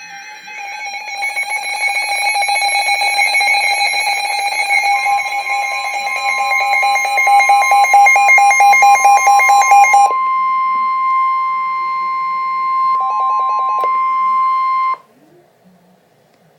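Emergency alert tones for a severe thunderstorm warning: a loud, rapidly pulsing electronic beeping alarm, joined about five seconds in by a steady high warning tone. The beeping stops about ten seconds in, and the steady tone goes on alone, with a brief burst of beeps, until it cuts off suddenly about fifteen seconds in.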